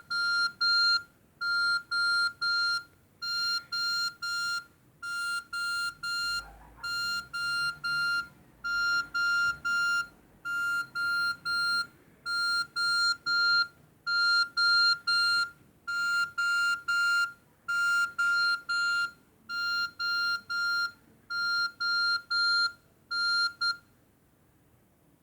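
Nokia 6300 mobile phone playing a beeping ringtone through its speaker: quick groups of short beeps on one steady high pitch, repeating about every one and a half seconds, stopping near the end.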